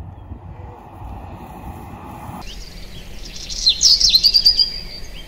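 Bird chirping. It cuts in suddenly about two and a half seconds in, and goes from a few quick high, falling notes into a rapid run of repeated high notes.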